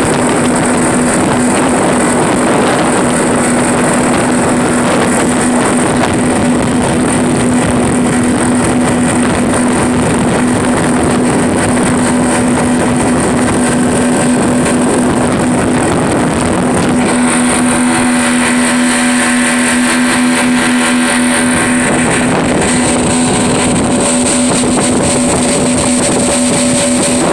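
Twin Yamaha 75 hp outboard motors running steadily at speed, a constant drone over the rush of water and wind as the boat skims the sea.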